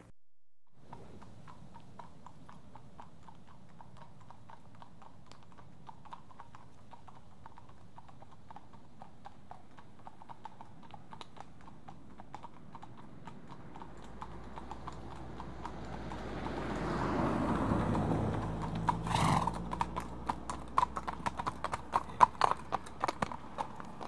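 Horse trotting: a regular clip-clop of hooves, faint at first and growing louder and sharper in the last few seconds as it comes close.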